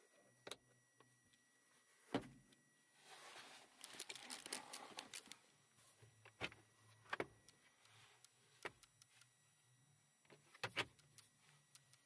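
Scattered plastic clicks and snaps from a Toyota Corolla's interior fittings being worked by hand: the overhead light switch, then a lower-dash compartment lid. A sliding, rustling stretch comes about three to five seconds in, and a quick double click near the end.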